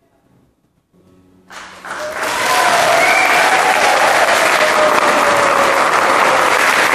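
Audience applauding, starting suddenly about a second and a half in, after the last faint notes of music die away, and carrying on steady and loud.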